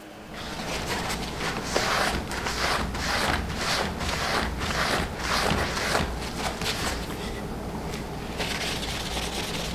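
Repeated rubbing strokes, about three a second, as cold bluing solution is wiped and worked onto a steel hatchet head, easing off after about seven seconds and picking up again near the end. A steady low hum runs underneath.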